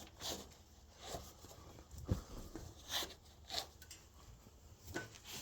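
Faint, scattered scraping and rustling handling noises, about six short ones, with a dull knock about two seconds in.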